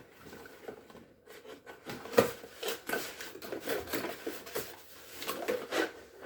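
Handling noise while unpacking: a series of light clicks, taps and knocks as boxed parts and packaging are moved about, the sharpest about two seconds in.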